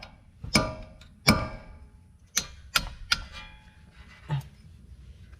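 Hammer blows on metal: two hard, ringing strikes in the first second and a half, three lighter ones around the three-second mark, and a duller knock near the end. They are breaking up a front ABS sensor that is seized solid by rust.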